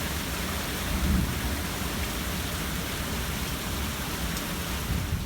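Heavy rain pouring steadily in a thunderstorm, with a low rumble underneath that swells briefly about a second in.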